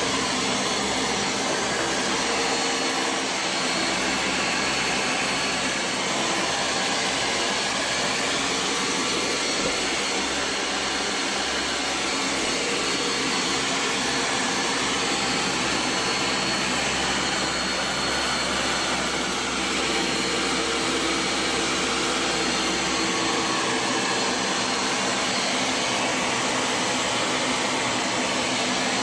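Ninja countertop blender running steadily at full speed, blending a thick protein shake.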